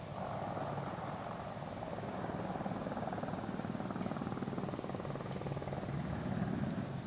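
Boeing AH-64D Apache attack helicopter in display flight: the whine of its twin turboshaft engines and a fast, even beat of the main rotor blades, a little louder from about two seconds in.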